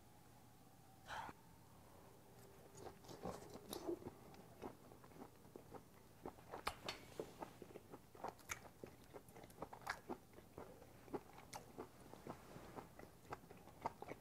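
A person chewing a mouthful of grilled Hanwoo beef chuck flap (salchisal), quiet wet smacks and clicks of the mouth picked up close by a clip-on microphone. The chewing sounds start a couple of seconds in and come irregularly, a couple each second.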